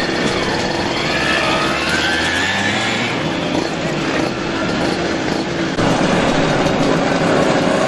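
Several small motorcycles (motorizadas) running in a group, their engines revving up and down as they ride past. The sound grows louder about six seconds in as more bikes come near.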